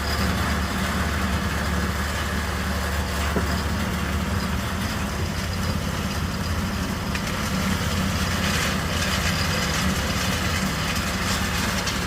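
Small engine-driven concrete mixer running steadily, its engine a constant low hum while a batch of gravel, sand, cement and water mixes.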